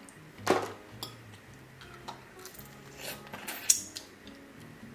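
Soft background music under a few crackles and clicks of blue crab shell being picked apart by hand, with one sharp click near the end.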